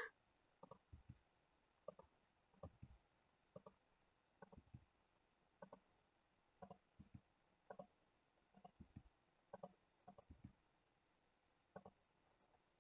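Faint clicks of a computer mouse, irregular and about one or two a second, some in quick pairs.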